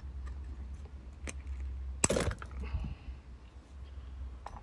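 Small metal clicks and scraping as a tool pries a spring retaining washer out of the valve seat of a Daimler Ferret 'David' diaphragm fuel pump, with one sharp metallic click-clatter about two seconds in as the clip comes free. A low steady hum runs underneath.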